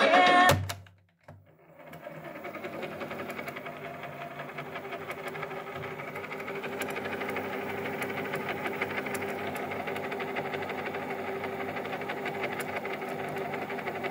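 Unitra MK 433 Automatic cassette deck's tape transport winding the tape at high speed: a steady mechanical whirr with a fine, rapid rattle that starts about two seconds in, after the music cuts off, and grows slightly louder as it runs.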